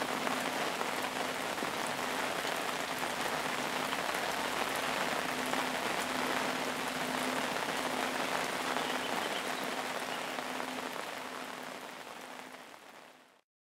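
Steady rain falling on a lake, fading out over the last few seconds.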